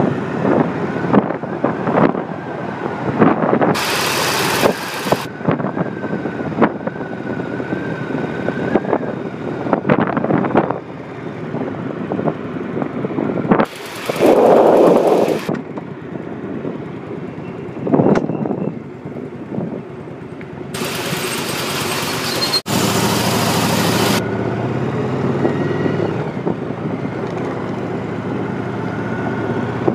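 Motorcycle engine running steadily while riding along a city street, with wind buffeting the microphone in several loud gusts, the longest near the middle and about two-thirds of the way through.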